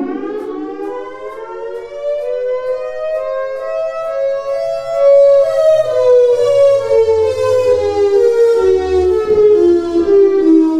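Outdoor warning siren sounding a slow wail: its pitch rises for about five seconds, then falls back over the next six, with a low rumble underneath in the second half.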